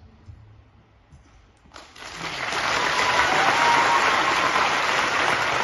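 Large audience applauding: after a hush of just under two seconds, the clapping starts suddenly, swells within a second and then holds steady and loud.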